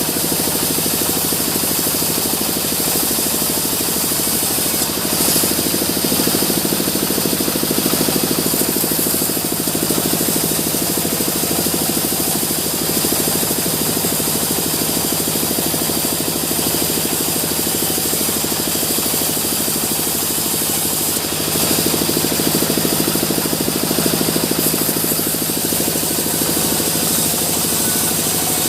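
Sawmill machinery running steadily: a loud, continuous mechanical drone and hiss, a little louder about five seconds in and again about twenty-one seconds in.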